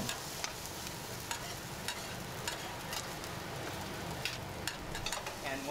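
Pad thai noodles frying on a large flat pan: a steady sizzle with irregular clicks and scrapes of a metal spatula stirring them against the pan.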